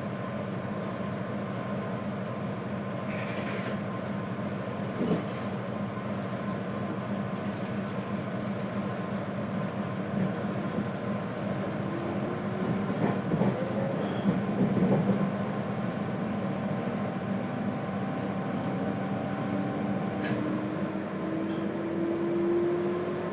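Interior running sound of a JR Hokkaido 721 series electric multiple unit, heard in the motor car of a thyristor phase-controlled set: a steady electrical and rolling hum with fixed whining tones. A few knocks come in the middle, and a tone rises slowly in pitch through the second half.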